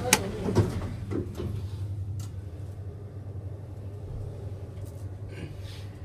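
Two sharp clicks in the first second as buttons on a lift car's operating panel are pressed, followed by a steady low hum inside the lift car with a few fainter knocks.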